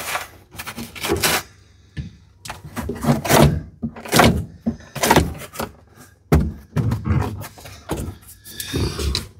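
A plastic dash cap being pressed down, shifted and lifted off a truck dashboard by hand: an irregular run of thunks and plastic rubbing and scraping.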